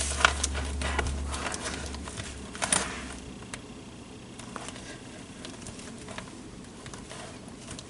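Hands handling and posing a plastic action figure: a run of sharp clicks and knocks over the first three seconds, with a louder knock about a third of a second in and another near three seconds, then only scattered soft taps. A low rumble sits under the first three seconds and stops.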